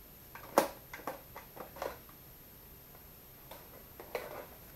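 A sharp click about half a second in, then a quick run of lighter clicks and knocks and a few more near the end: plastic-and-metal handling noise from a Nerf blaster between shots.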